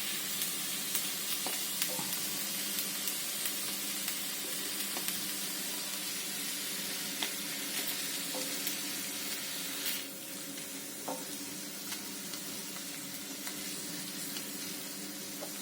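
Chopped tomatoes and onions sizzling in hot oil on a tava, with occasional light clicks of a spatula stirring them. The sizzle gets a little quieter about ten seconds in.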